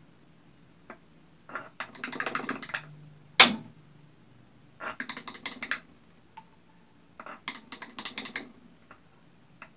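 Quick runs of light clicking and tapping as a wooden stick rattles in a small food-colouring bottle and against the plastic bottle's neck, in three bursts, with one sharper knock about three and a half seconds in.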